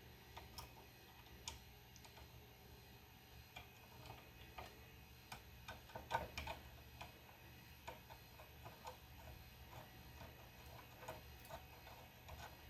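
Faint, irregular small metal clicks and taps from a steel lead screw being turned by hand down into a spring-loaded brass anti-backlash nut, with a louder run of clicks about six seconds in. The screw is not threading through easily.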